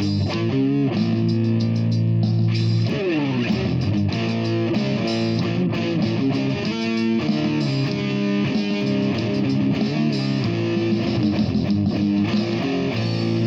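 Electric guitar playing sustained notes, with a sliding drop in pitch about three seconds in.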